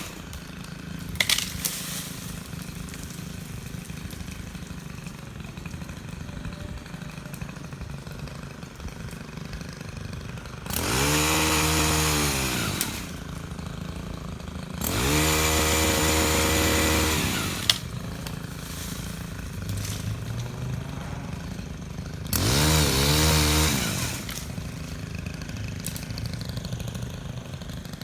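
Chainsaw idling, revved up three times, each time running high for about two seconds before the pitch drops back to idle.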